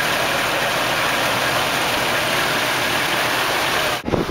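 Cruise boat's engine running steadily with a constant rushing noise, which cuts off abruptly near the end, followed by a brief low thump.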